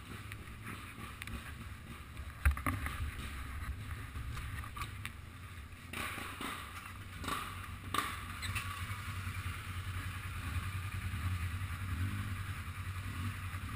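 ATV engine running low and steady while the machine works through mud, with watery sloshing and a few sharp knocks about two and a half, six, seven and eight seconds in.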